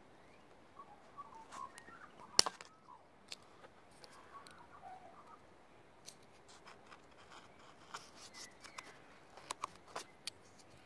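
Nail clippers snipping through a plastic zip-tie tail flush with the head: one sharp snap about two and a half seconds in. A few lighter clicks follow near the end.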